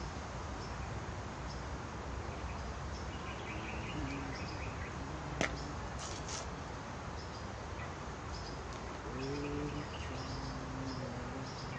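Outdoor ambience: a steady background hiss with small birds chirping in short high notes repeated about twice a second, lower-pitched calls a few seconds in and again near the end, and one sharp click about five seconds in.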